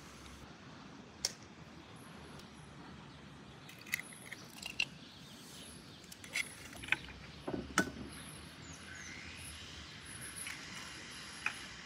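Hen eggs cracked one after another against a bowl's rim and broken open, a scatter of short, sharp shell cracks and clicks, the loudest about eight seconds in.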